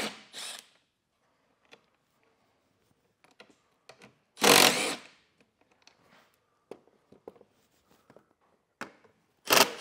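A Milwaukee compact cordless driver with an 8 mm socket runs in short bursts, backing out the bolts that hold a car's adaptive cruise control sensor. There is a brief run just after the start, a louder run of under a second about four and a half seconds in, and another starting near the end, with light clicks of the tool and bolts between.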